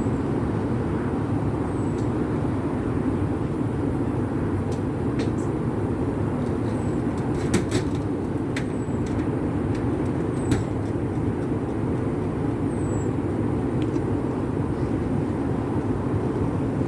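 A blacksmith's forge running with a steady, low rushing noise as it heats, with a few sharp metallic clicks about halfway through.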